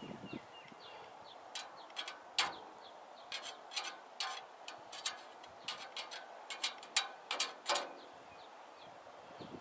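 Welding rod tapped and scratched against a steel frame, making a string of irregular sharp metallic clicks. No arc strikes, because the flux coating on the rod's tip has not been filed off.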